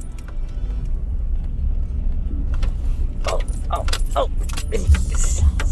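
Vehicle rolling slowly over a rough dirt track, its low road-and-engine rumble steady underneath. From about two and a half seconds in, loose items inside the cab jangle and clatter, with heavier jolts near the end as it hits bumps.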